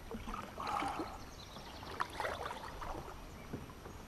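Kayak paddle strokes: the blades dipping and splashing in the river water, with water trickling off them, and one sharp knock about two seconds in.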